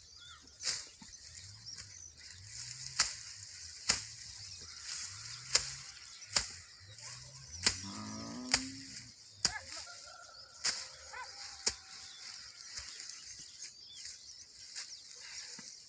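Panga (machete) strokes cutting grass: sharp chops at an irregular pace, about one a second, over a steady high hiss.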